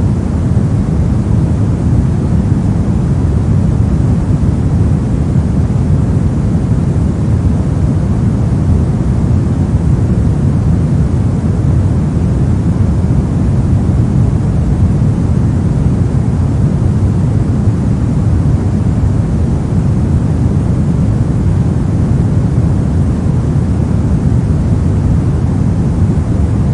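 Steady pink noise: an even, unbroken rushing hiss weighted toward the low end.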